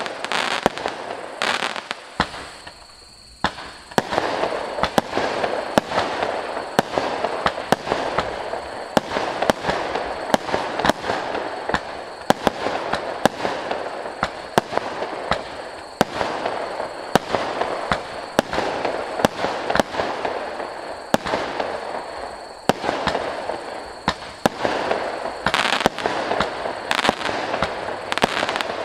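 A 100-shot fireworks cake firing in quick succession: sharp shots and bursts about two a second over a steady crackle, with a short lull about three seconds in.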